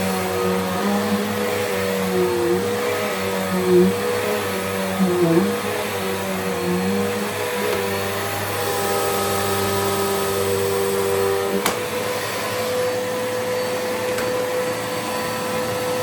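Bissell Powerforce upright vacuum cleaner running on carpet with its motor and brush bar going. The motor's drone dips briefly in pitch a few times in the first half and evens out later. There is a single click about twelve seconds in.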